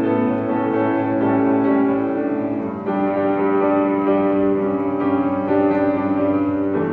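Instrumental music: a keyboard playing held chords, the chord changing about three seconds in and again near the end.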